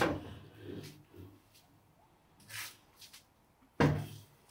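Handling noise from the metal parts of a Hammer C3 31 jointer's infeed table assembly: a loud knock at the start and another, with a low thud, near the end, with softer scrapes and rattles between.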